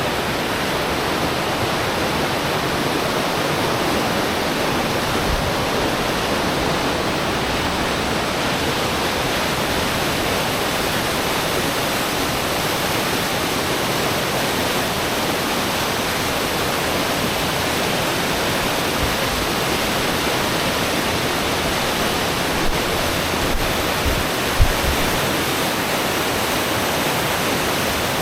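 Steady rush of falling water, an even hiss that does not change, with a few soft knocks about three-quarters of the way through.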